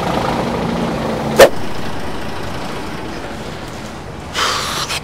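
Truck diesel engine idling, with one sharp bang about a second and a half in and a short hiss near the end.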